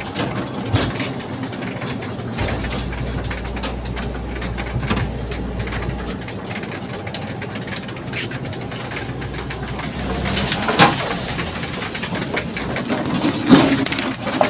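Steady engine-like background rumble with scattered clicks and knocks, including a louder knock about eleven seconds in and another near the end.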